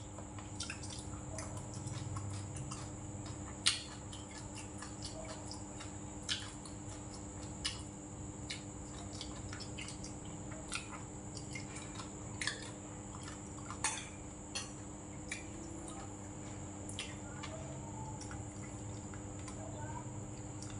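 Mealtime eating sounds: a metal spoon and chopsticks clicking and clinking against a rice bowl and dishes in scattered single taps, with chewing between them, over a steady faint hum.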